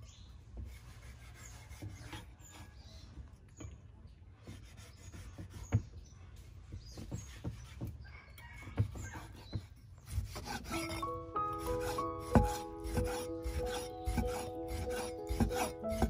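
Cleaver slicing through raw pork on a wooden chopping board: rubbing, scraping strokes with scattered knocks of the blade on the wood. Background music comes in about two-thirds of the way through.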